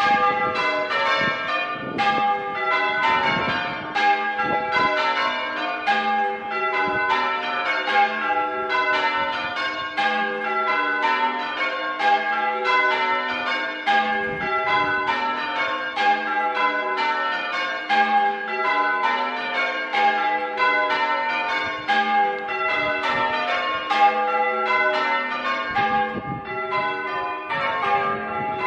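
A ring of six church bells (tenor 8-3-22 cwt, tuned to G) being rung in changes: an unbroken, even stream of bell strikes, each ringing on into the next.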